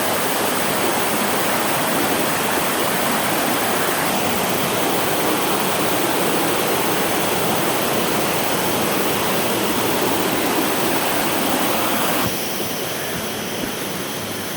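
Waterfall rushing steadily over rocks, a dense, even hiss of falling water; about twelve seconds in it turns a little quieter and thinner.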